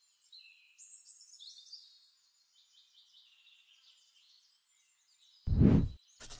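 Motion-graphics intro sound effects: faint high chirps and short gliding tones, then about five and a half seconds in a short loud low boom, followed near the end by a brief hissing burst.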